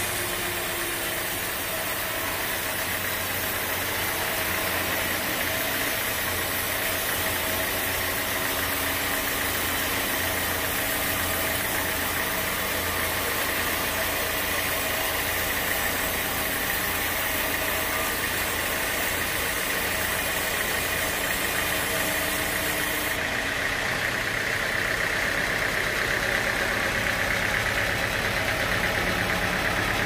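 Band sawmill running with its blade cutting lengthwise through a large teak slab, a steady mechanical drone with the hiss of the cut. The high hiss thins out about three quarters of the way through.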